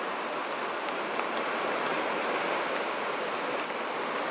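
Ocean waves breaking on rocks, a steady rush of water.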